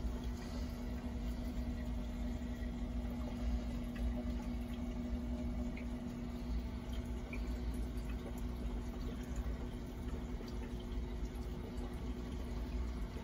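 Aquarium filter running steadily: a low motor hum under trickling, bubbling water with small scattered drips.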